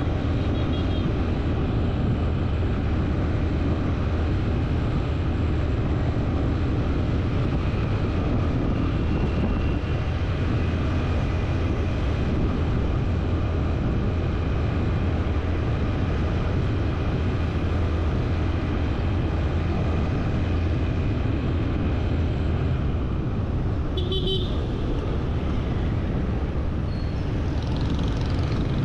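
Road traffic noise: a steady low engine and wind rumble, with a short vehicle horn toot near the end.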